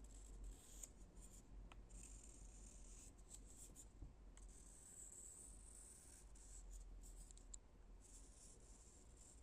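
Faint scratching and rubbing on a wooden surface, in stretches of scratchy hiss broken by a few light clicks.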